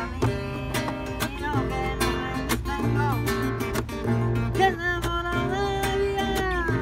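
Two acoustic guitars jamming flamenco together, a nylon-string flamenco guitar and a small acoustic guitar, with plucked melody notes over strummed chords.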